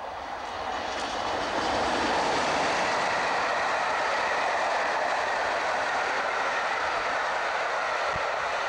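A passenger train of blue-and-grey coaches hauled by a Class 47 diesel passes close at speed. It makes a steady roar of wheels on rail with a clickety-clack, building over the first couple of seconds and then holding loud.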